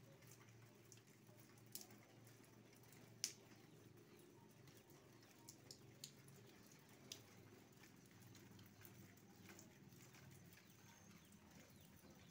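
Faint steady rain with scattered drips tapping close by, one sharper tap about three seconds in.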